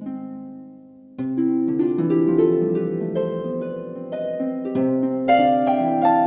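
Background music of plucked string notes ringing over one another; it fades low at first, and a fresh run of notes comes in about a second in.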